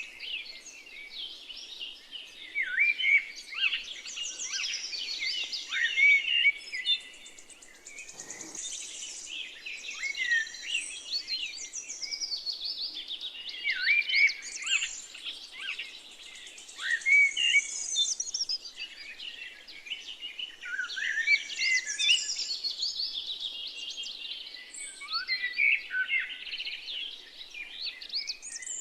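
A flock of small birds chirping continuously, many short overlapping chirps and quick pitch sweeps at once.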